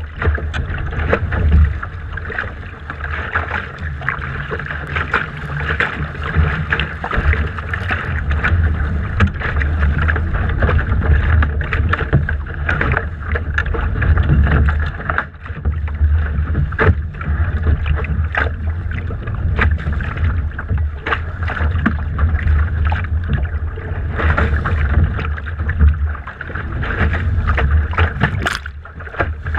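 Wind buffeting the microphone of a camera mounted on a Laser dinghy's deck, over water rushing and slapping against the hull, with many short knocks and splashes.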